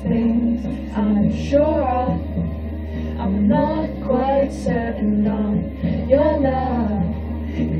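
Music: a slow song with a sung vocal melody over sustained bass notes that change about every two and a half seconds.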